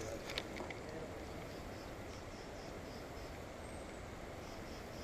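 Quiet outdoor ambience with a steady faint background rush. A few sharp clicks come in the first half-second. A faint, high chirp repeats about three times a second throughout.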